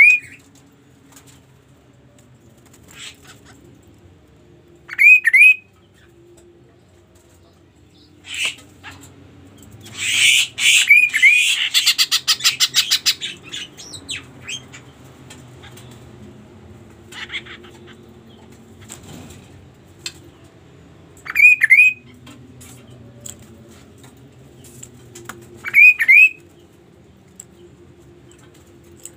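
Chestnut-capped babbler (kaso-kaso) singing: short pairs of rising whistled notes every few seconds, with a loud harsh burst and a fast rattle of about ten strokes a second near the middle.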